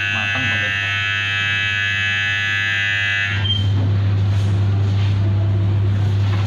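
Deck oven timer buzzer sounding a steady electronic buzz over a low electrical hum, signalling that the bake is done; it cuts off suddenly about three seconds in. Then only the hum and a hiss remain, with a few faint knocks as the oven is opened and the tray handled.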